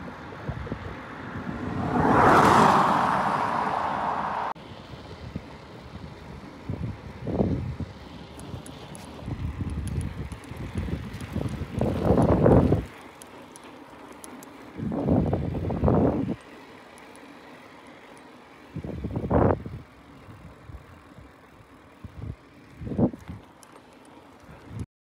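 Wind rushing over the camera's microphone while riding a touring bicycle along a highway, rising and falling in a series of gusts, the loudest a couple of seconds in. The sound changes abruptly several times.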